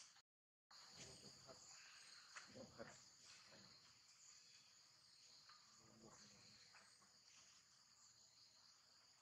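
Faint, steady high-pitched insect chorus, with a few soft taps and rustles underneath in the first few seconds. The sound drops out completely for a moment just after the start.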